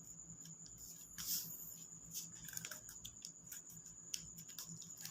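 Faint rustling and a few small clicks of paper being handled and pressed down while a paper wing is glued on, with a soft rustle about a second in, over a steady faint high whine and low hum.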